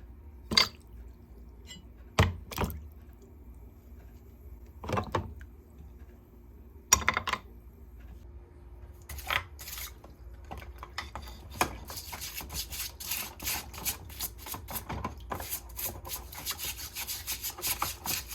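Metal parts of a rusty hand plane being handled: a few separate knocks and clanks as pieces are picked up and set down. About eleven seconds in, this gives way to a brush scrubbing them in quick back-and-forth strokes that grow denser toward the end, cleaning off acid-loosened rust.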